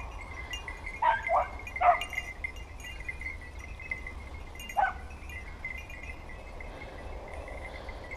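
Young dogs (five- and six-month-old puppies) giving short, sharp barks: three in quick succession about a second in, and one more a few seconds later.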